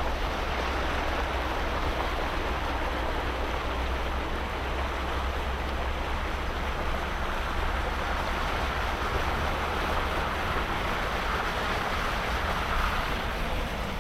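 A vehicle driving, heard as a steady rushing noise with a constant low rumble underneath.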